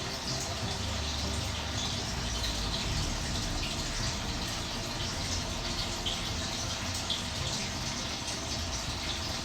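Steady rush of running or splashing water.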